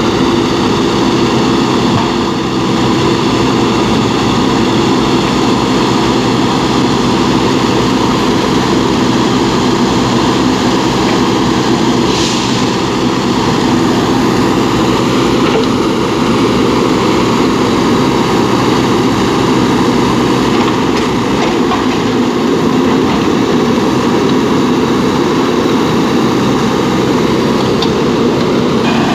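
JCB backhoe loader's diesel engine running steadily under work, a continuous drone with several steady tones. A brief high-pitched sound cuts through about twelve seconds in.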